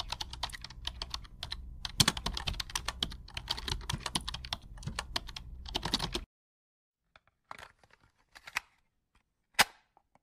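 Typing sound effect: rapid clicking of keyboard keys for about six seconds, then a few isolated clicks, accompanying text being typed out on screen letter by letter.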